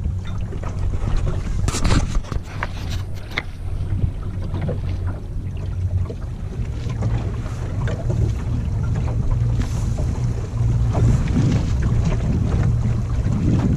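Wind buffeting the microphone in a dense low rumble, with water slapping and splashing against a small dinghy's hull; a cluster of sharper splashes comes about two seconds in, and the wind rumble grows louder near the end.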